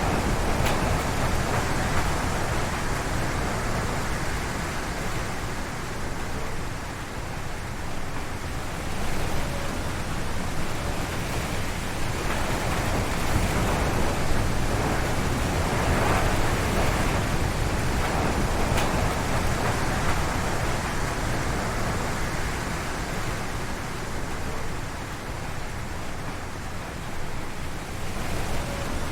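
Strong wind gusting through forest trees: a steady noise, heaviest at the low end, that eases off about seven seconds in and again near the end and swells in between.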